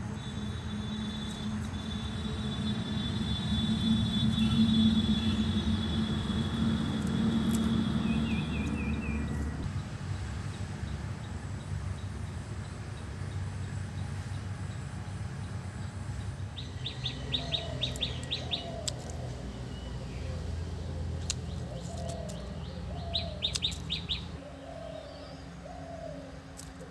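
Birds calling: two bursts of rapid high trilled chirps in the second half, mixed with short, lower calls that slide downward, over a steady low background rumble.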